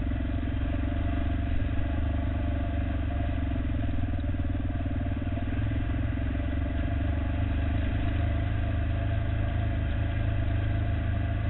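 Honda XR650R dirt bike's single-cylinder four-stroke engine running at fairly steady revs while riding along a dirt single-track.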